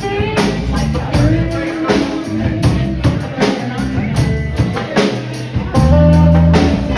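Live band playing in a bar: electric guitars over a drum kit keeping a steady beat, with a loud held low chord about six seconds in.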